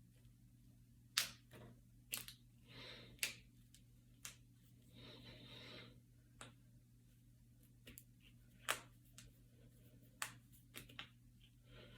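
Finger knuckles being cracked: a series of about eight or nine sharp, single pops a second or more apart, the loudest about a second in. Soft breathing can be heard between some of the cracks.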